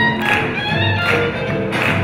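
Live swing big band playing an up-tempo tune, with piano, double bass and drums keeping a steady beat.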